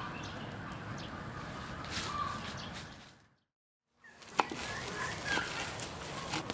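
Outdoor ambience of birds calling over a steady hiss, with scattered small sharp clicks. The sound fades out to silence for under a second about three seconds in, then picks up again.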